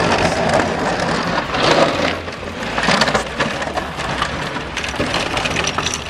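Pickup truck's plow blade pushing and scraping packed snow across pavement: a loud, continuous crunching rush that swells twice, about two and three seconds in.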